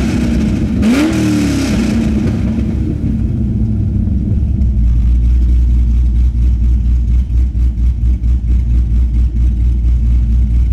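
Pontiac GTO's 6.0 L LS2 V8 revved: engine speed falling off one blip, rising and falling again about a second in, then settling into a steady idle with an even low pulse about four seconds in.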